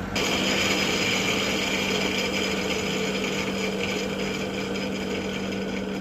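A steady engine or motor running sound that starts abruptly, holding an even pitch throughout.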